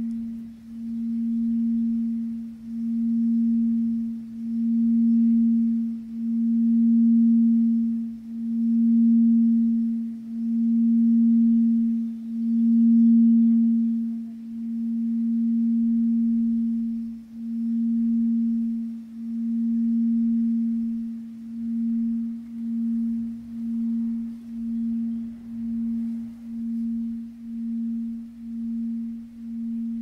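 Tibetan singing bowl tuned to A at 220 Hz, holding one steady pure tone that swells and fades in a regular pulse about every two seconds. The pulse quickens to about once a second around two-thirds of the way through.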